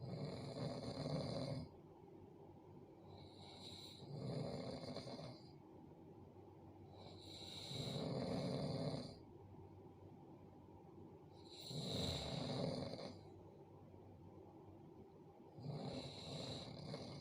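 A person snoring in a slow, even rhythm: five snores about four seconds apart, each lasting a second or two.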